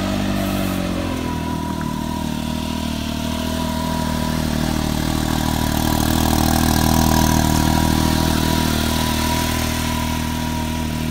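Brand-new Can-Am Maverick X3's three-cylinder turbocharged Rotax engine idling steadily right after its first start-up, getting slightly louder around the middle before settling again.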